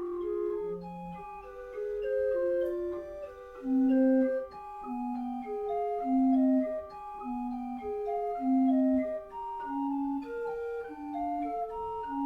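Chamber organ with wooden pipes playing a bell-imitating piece: quick repeated figures ring over a low note that sounds about once a second, like a peal of church bells.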